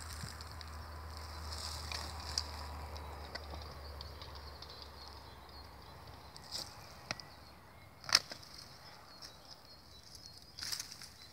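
Long-handled loppers snipping through woody blueberry stems at the base of the bush: a few short sharp snips, the loudest about eight seconds in, with a brief rustle of branches near the end.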